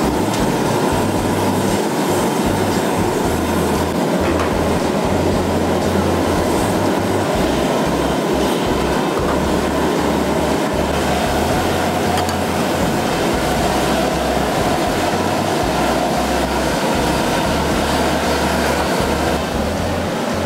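Loud, steady rumbling noise without a clear pitch.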